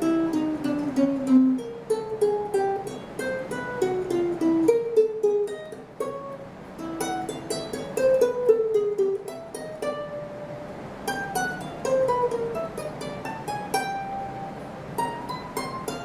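aNueNue US200 Moon Bird soprano ukulele with a moon spruce top, fingerpicked: a melody of single plucked notes, many in falling runs.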